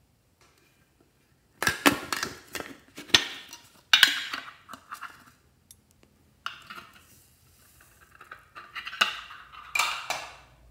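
A metal candy tin handled and opened, its lid clattering and clinking, then small foam beads rattling and sliding out of it with a soft hiss, with a few more clinks near the end.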